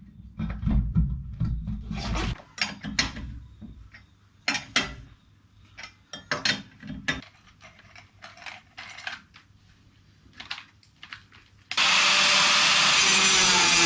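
Clanks, knocks and clicks of a heavy 35-inch tyre and wheel being handled onto a ute's hub and its wheel nuts being done up. There are low thuds in the first couple of seconds, then scattered metallic clicks. Near the end a loud steady noise starts abruptly.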